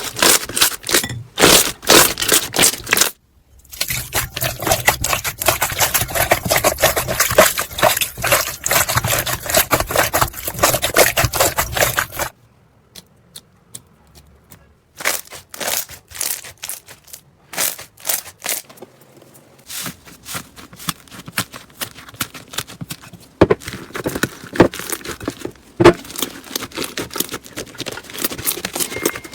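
Slime being squeezed, stretched and poked by hand, giving dense runs of crackles, clicks and pops. It comes in several separate clips, with a short break a few seconds in and a quieter stretch around the middle.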